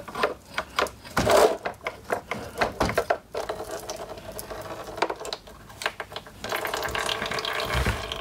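Clicks and metal scrapes of a hose clamp being worked loose on a transmission cooler line, then a steadier trickle as automatic transmission fluid runs out of the disconnected hose into a drain pan, stronger near the end.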